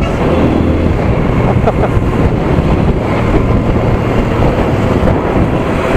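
TVS Apache RTR 200 4V's 197.75 cc single-cylinder, oil-cooled four-stroke engine running while the bike is ridden on the road, under steady loud wind noise on the microphone.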